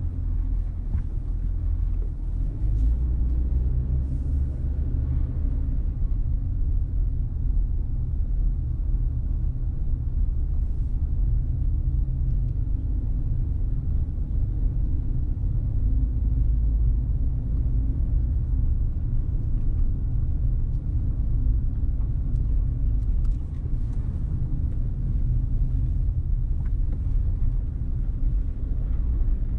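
Car driving at low speed: a steady low rumble of road and engine noise.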